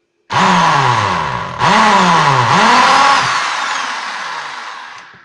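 Electric drill with a 3 mm bit boring a hole through a thin metal bracket into a wooden backing block. The motor's pitch sags as the bit bites and picks up again twice, then slows and fades out near the end as the hole is finished.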